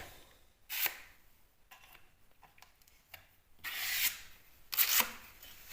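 A filling knife scraping filler across plasterboard in three strokes: a brief one about a second in, a longer one a little before four seconds, and a short one near the end.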